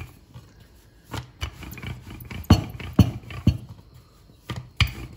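Wooden rolling pin rolling out dough on a wooden board, with a series of light, irregular knocks and thumps of wood on wood.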